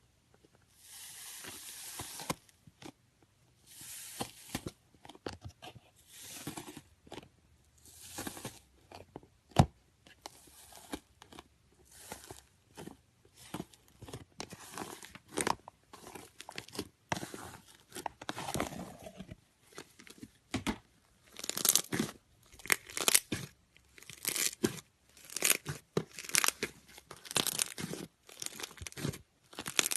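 Slime being squeezed and stretched by hand, giving repeated bursts of sticky crackles and pops about once or twice a second. The bursts grow louder and come faster about two-thirds of the way through.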